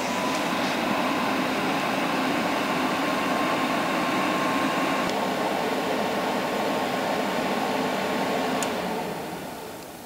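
Vevor diesel air heater's blower fan running in cool-down mode after the heater has been shut off: a steady rush of air with a faint thin whine. Near the end the fan winds down and the sound fades away.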